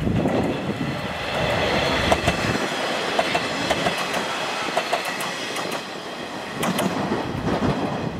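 KiHa 40-series diesel railcar passing close by, its wheels clacking over the rail joints as it goes by.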